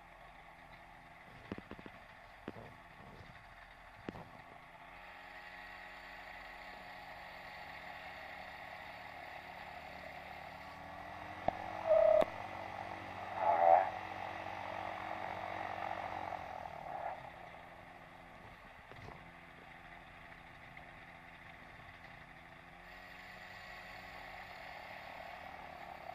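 Quicksilver ultralight's engine running steadily at low power, heard faintly through a headset microphone, with two short louder sounds about twelve and thirteen and a half seconds in.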